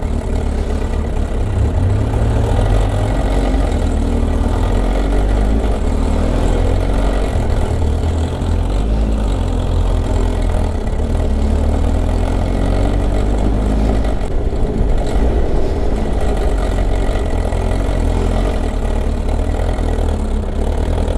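Kawasaki ZR-7S's air-cooled inline-four idling steadily with a loud mechanical clatter that sounds like a dry clutch. The rider suspects the cam chain or its automatic tensioner.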